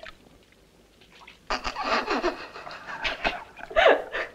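A woman laughing, starting about a second and a half in, with a few short breathy bursts near the end.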